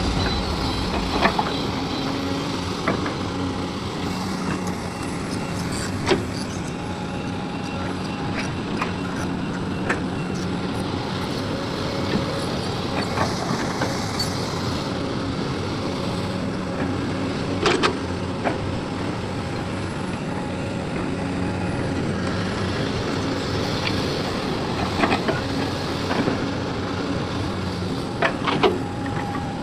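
Heavy diesel engine of an excavator at work loading a dump truck, running steadily, with several sharp knocks scattered through.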